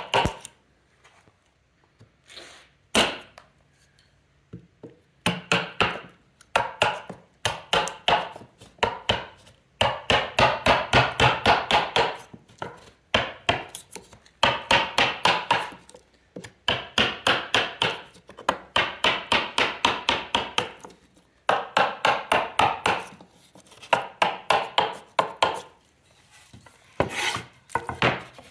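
Hammer driving a chisel into wood, chopping out the waste of a T-halving joint. It comes in quick runs of light, ringing blows, about five or six a second, with short pauses between runs.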